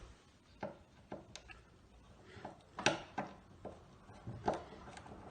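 Screwdriver driving a screw through a metal hinge into wood: a series of irregular short clicks and knocks, the sharpest nearly three seconds in. The screw goes into a stripped hole plugged with glued wooden matchsticks, so it bites tighter.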